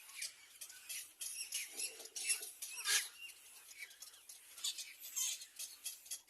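Young birds giving many short, high-pitched squeaky chirps in quick, uneven succession, with a few louder calls around the middle.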